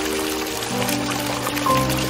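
Background music of held, slowly changing notes, with new notes entering about two-thirds of a second in and near the end, over a steady hiss of flowing water.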